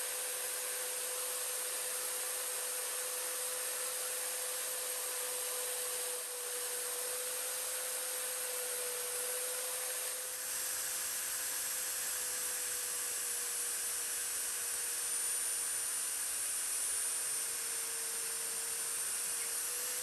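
Magnetic drill running steadily with a constant whine as its center drill cuts a starter hole into a metal square tube.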